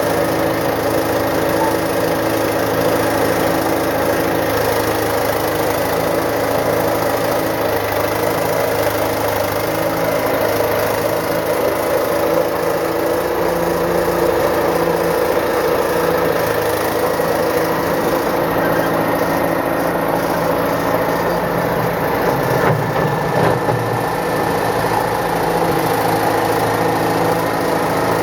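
Diesel engine of a Caterpillar 955 track loader running steadily, with a brief change in its low note near the end.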